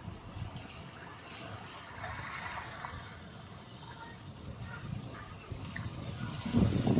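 Storm-stirred sea water sloshing and lapping in typhoon wind. About six and a half seconds in, a gust starts buffeting the microphone.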